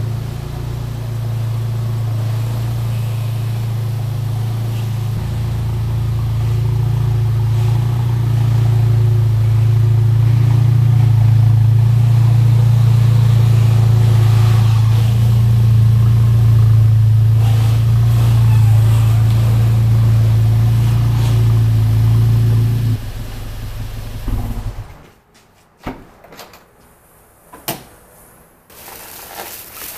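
Volkswagen Mk7 Golf GTI's turbocharged four-cylinder engine running at low speed as the car creeps in, growing louder to about the middle, then dropping at about 23 seconds and shutting off about two seconds later. A few short knocks and clicks follow near the end.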